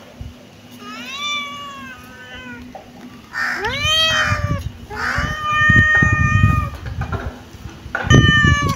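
Kitten meowing, high-pitched, four times: a fainter call about a second in, a loud meow that rises then falls around the middle, a long level meow just after, and a short one near the end.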